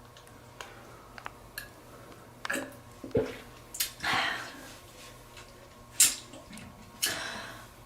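Quiet wet mouth sounds and breaths between burps: scattered small clicks and a few short, noisy puffs of breath, with no burp.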